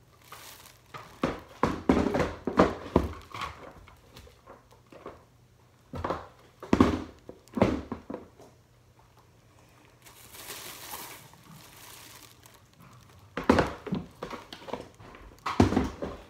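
Plastic shopping bag crinkling while used bedding is scooped out of a hamster cage, in several bursts of rustling and light knocks.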